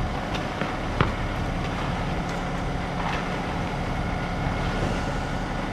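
A vehicle engine running steadily, with a sharp knock about a second in and a few faint scrapes of hand tools in wet concrete.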